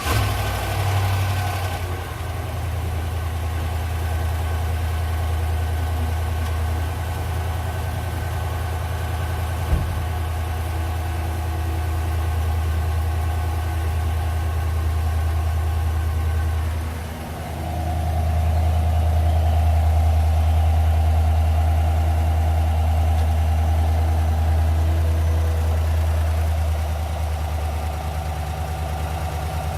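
A 2021 Chevrolet Tahoe / GMC Yukon V8 idling steadily just after being started, with a single sharp click about ten seconds in and a brief dip in the engine note past the halfway point. This is an engine with a stored misfire code and a reported ticking noise.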